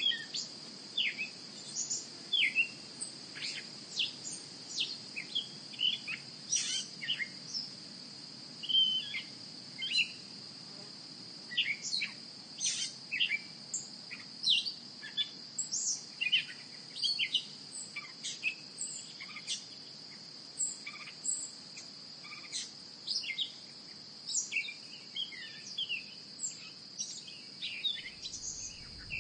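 Birds chirping, many short quick calls throughout, over a steady high-pitched insect drone.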